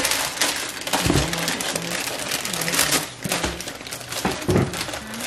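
Parchment paper crinkling and a disposable aluminum foil pan rustling as hands press and pat dough into the lined pan, with a few dull thumps from the pressing.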